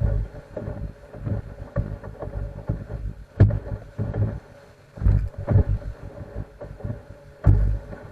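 Fishing boat running at speed over a slight swell: the hull thumps irregularly on the waves over a steady engine drone, with wind on the microphone.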